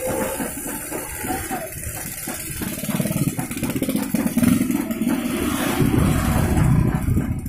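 Moving street-food cart rattling along the road, with a motorcycle engine running underneath. The low rumble drops away abruptly at the very end.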